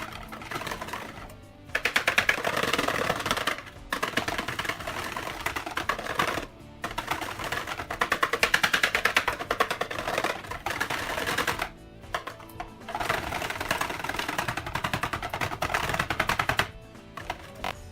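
Rapid rattling clicks in runs of about two seconds, broken by short pauses.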